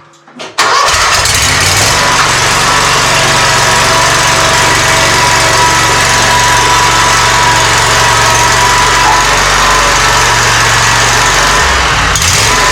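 Gravely Pro-Turn 252 zero-turn mower's engine running steadily at a constant speed; the sound comes in suddenly about half a second in.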